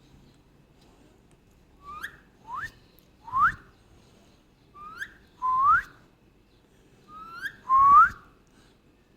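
Indian ringneck parakeet whistling: seven short rising whistles in three quick groups, three, then two, then two.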